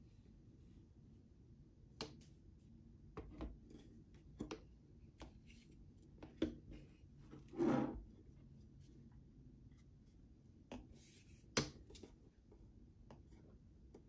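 Handling noise from a metal LED desk lamp: a scattering of light knocks and clicks as its arm is moved and positioned over the base, with a short rubbing scrape a little before the eight-second mark.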